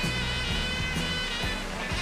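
Background music with held notes over a low bass line.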